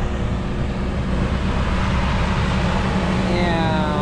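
Mercury 60 outboard motor running steadily, with water and wind wash over it. About three seconds in, its pitch rises and then levels off as the motor speeds up.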